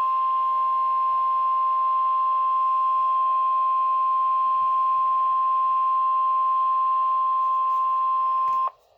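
NOAA Weather Radio 1050 Hz warning alarm tone: one steady, loud beep held for about nine seconds over faint hiss, cutting off sharply near the end. It signals that a severe weather warning is about to be read.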